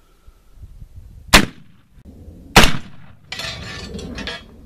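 .54-caliber percussion muzzleloading rifle firing: two sharp, very loud reports about a second and a quarter apart, the second with a longer trailing boom. They are followed by about a second of rough rustling noise.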